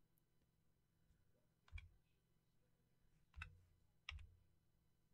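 Three faint clicks from a computer keyboard and mouse, otherwise near quiet.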